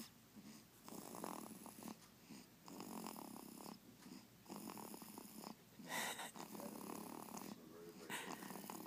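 One-month-old baby snoring softly: a snore on each breath, about every one and a half to two seconds, with a sharper, louder breath about six seconds in.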